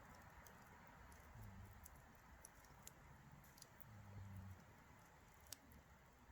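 Campfire crackling faintly, with scattered sharp pops, the sharpest about three seconds in and again near the end. A low hum swells and fades twice.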